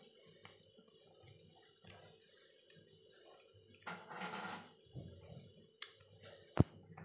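A cat eating from a plastic bowl: faint chewing with scattered small wet clicks and ticks. There is a short rustling burst about four seconds in, and a single sharp click near the end.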